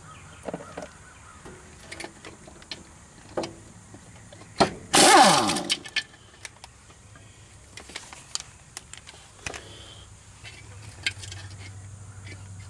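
Scattered metal clinks and knocks of tools on the mower's cutterbar bolts, with one loud burst of about a second from a power tool about five seconds in, its pitch falling as it winds down.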